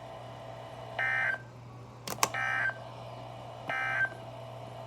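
Emergency Alert System end-of-message (EOM) data bursts: three short warbling digital tone bursts about a second apart, signalling the end of the alert. There are two sharp clicks just before the second burst, over a steady low hum.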